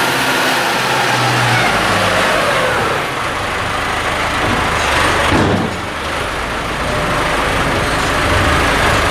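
Diesel engine of a McCormick loader tractor running as the tractor drives up, with the engine note falling and then rising again in the middle.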